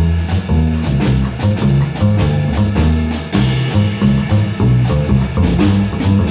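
Jazz double bass plucked in a run of low, evenly paced notes, with a drum kit keeping time under it.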